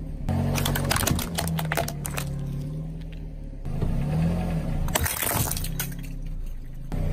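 A car tyre crushes hard plastic, which cracks and snaps over the car's low engine hum. First comes a run of sharp cracks from a plastic toy truck. About five seconds in there is a dense burst of crackling as a row of small plastic cups is crushed.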